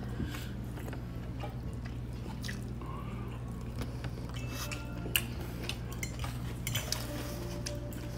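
Quiet eating sounds: a mouthful being chewed, with scattered light clicks of a fork against a plate, over a steady low hum.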